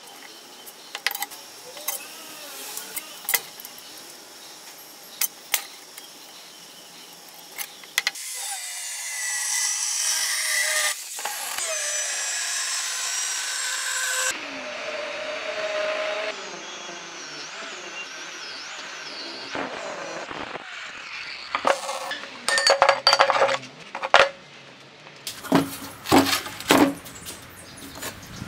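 Angle grinder with a thin cut-off disc cutting steel plate from about eight seconds in, a loud hissing grind with a whine that changes pitch as it cuts, then running down. Light taps and clicks come before it, and a string of loud metal clanks comes near the end.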